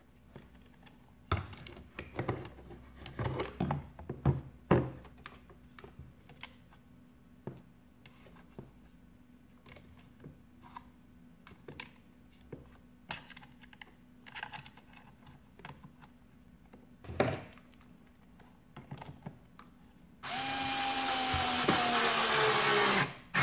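Plastic parts and hoses knocking and clicking as they are fitted into a coffee machine's frame. About twenty seconds in, a cordless electric screwdriver runs for about three seconds, its whine falling in pitch as it drives a screw in.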